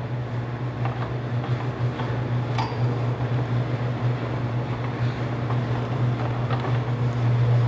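Bluedog BWS-80 HD wire stripping machine running with a steady low hum, with scattered light clicks and knocks over it.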